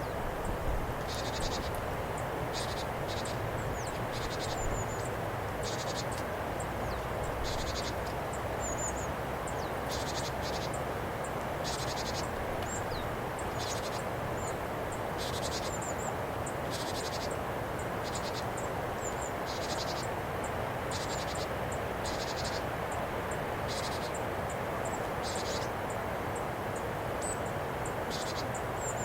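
Japanese tit giving its harsh buzzy "jiji" call over and over at uneven intervals, with thin high chirps in between, over a steady background hiss.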